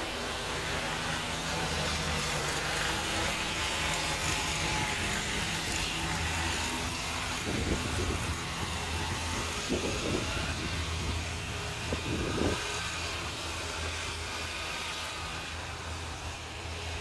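Outdoor road-traffic noise: a steady low hum with a broad hiss that swells and then eases off, with a few short thumps about halfway through.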